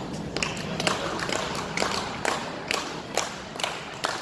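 Audience clapping in a steady rhythm, about two claps a second.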